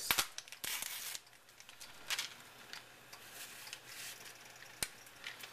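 A paper seasoning packet from a boxed rice mix being handled and shaken out over a skillet of rice. There is crinkling in the first second, then scattered light ticks as the seasoning falls, and one sharp click near the end.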